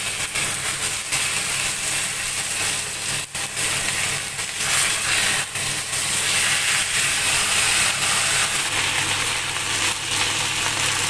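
Flour-dusted fish fillets sizzling loudly as they fry in oil in a nonstick frying pan, with a few sharp clicks as a utensil turns them and a steady low hum underneath.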